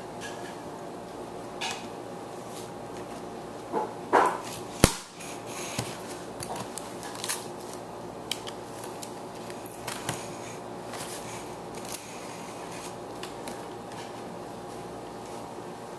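Toy packaging being handled and opened: scattered clicks and rustles of cardboard and plastic, with one sharp click about five seconds in, over a steady background hum.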